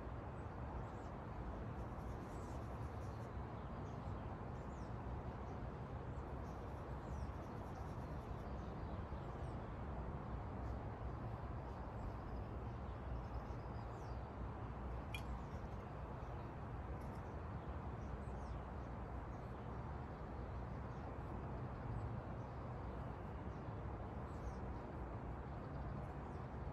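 Steady outdoor background noise with faint, scattered bird chirps, and one sharp click about halfway through.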